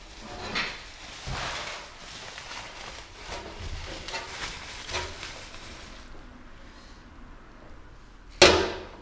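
Bubble wrap crinkling and rustling as it is handled, in several short bursts over the first five seconds. A single sharp knock near the end is the loudest sound.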